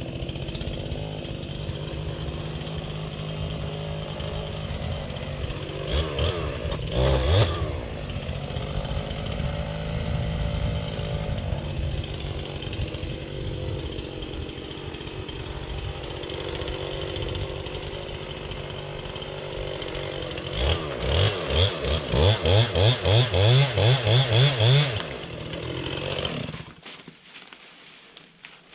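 Chainsaw running under load as it cuts into a tree trunk during felling. The engine rises in loud bursts about six seconds in and again in a quick pulsing series of revs about 21 to 25 seconds in, then cuts off a couple of seconds before the end.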